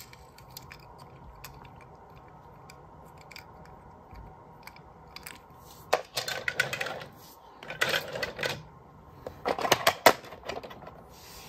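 A small toy car being handled, its hard parts clicking and clattering in a few short bursts in the second half.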